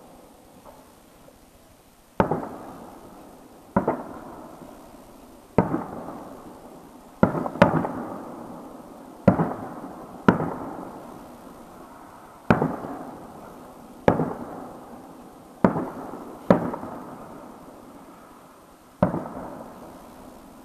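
Aerial firework shells bursting, about a dozen sharp bangs one to two seconds apart, two of them close together near the middle, each followed by a long rolling echo that fades away.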